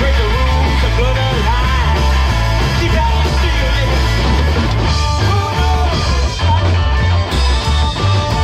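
Live rock band playing a song, with electric guitar and a pulsing bass line, loud and steady throughout.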